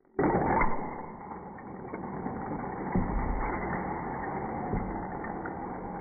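Dominoes crashing into a domino tower and knocking it down: a loud crash just after the start, then a long clatter of dominoes tumbling onto a wooden tabletop, with heavier thuds about three and five seconds in.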